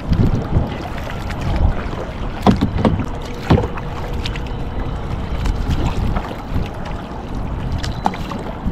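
Double-bladed kayak paddles dipping and splashing in the water with each stroke, over wind buffeting the microphone; a couple of sharper splashes or knocks stand out a few seconds in.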